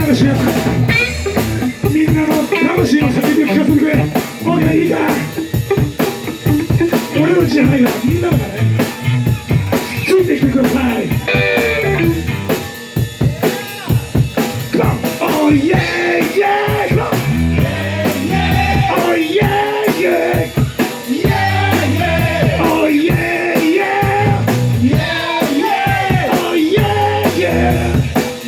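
A rock and roll band playing live at full volume, with a driving drum kit and guitar.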